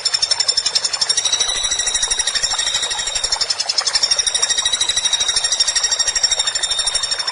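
Woodpecker giving a long, fast, high-pitched rattling call of evenly spaced notes, held without a break until it stops just at the end.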